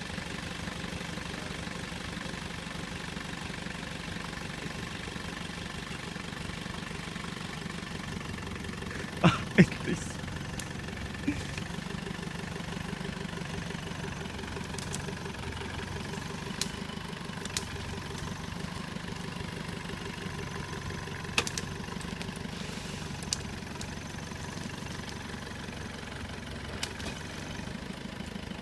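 A vehicle engine running steadily at idle. A few sharp knocks or clicks come over it, the loudest two close together about nine seconds in.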